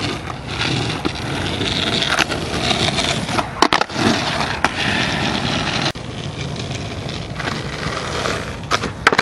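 Skateboard wheels rolling over pavement, a steady rolling noise, with a few sharp clacks; the loudest is about three and a half seconds in.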